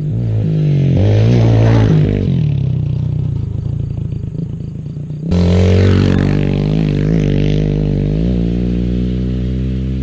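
Yamaha TT-R110 pit bike's small four-stroke single-cylinder engine revving up and down as the bike is ridden past close to the ground. It gets suddenly louder about five seconds in as the bike comes right by.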